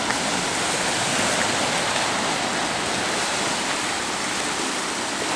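Ocean surf washing against the sea-cliff rocks: a steady, loud rushing hiss with no break.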